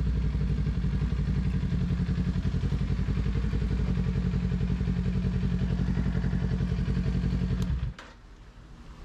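2018 Kawasaki Ninja 400's parallel-twin engine, fitted with a Two Brothers aftermarket exhaust, idling steadily at an even pulse, then switched off abruptly near the end.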